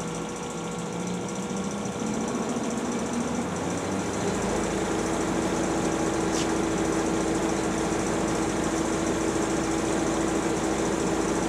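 DoAll 36-inch vertical band saw running with no load in its low gear range, driven by its 2 HP three-phase motor. Over the first four seconds the variable-speed drive is turned up, from about 70 to about 200 feet per minute, and the pitch rises. From about four seconds in the saw settles into a steady hum.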